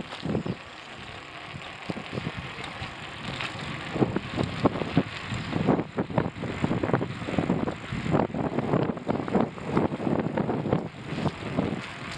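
Noise of riding along a street: irregular wind buffeting and rumbling thumps on the microphone, no steady engine note, growing heavier about four seconds in.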